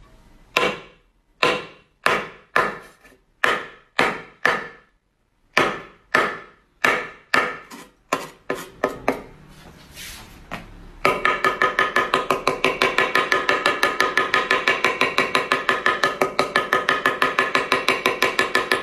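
Chinese cleaver chopping onto a wooden board, each stroke a sharp knock with a ringing metallic tail. At first it comes as separate chops spaced irregularly; after a short lull past the middle it becomes a fast, even run of about five chops a second.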